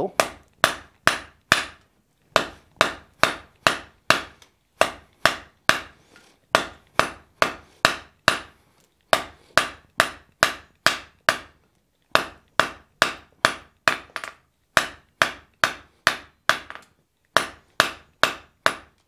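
Hand hammer striking a hot wrought-iron bar on an anvil in steady blows, about two to three a second, in runs broken by short pauses: drawing out a thin tail on the end of the bar.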